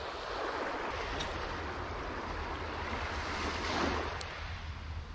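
Small waves lapping and washing onto a sandy beach, one wash swelling louder about four seconds in, with wind rumbling on the microphone.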